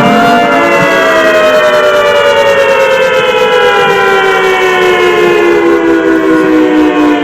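Outdoor tornado warning siren, played from a siren simulator app, sounding several pitches together that fall slowly and smoothly throughout as the wail winds down.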